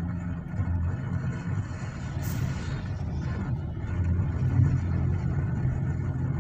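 Car engine and road noise heard from inside the cabin while driving: a steady low drone. About two seconds in, a brief hiss rises and fades as an oncoming vehicle passes.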